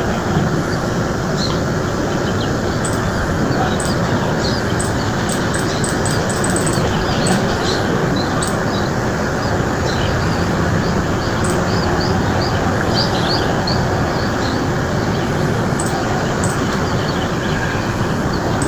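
Many birds chirping in short, high calls, scattered throughout, over a loud, steady rushing noise.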